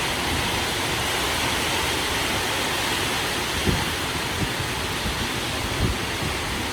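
Heavy rain pouring in a steady, loud hiss during a windstorm, with a few short low thumps about halfway through and again near the end.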